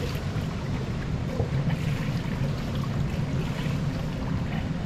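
Steady ambience of an indoor swimming pool: a continuous low rumble with water lapping around the bodies in the pool.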